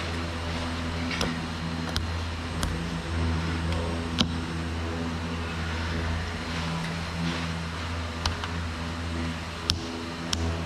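A workshop machine running with a steady low hum, with scattered sharp clicks and taps of handling over it.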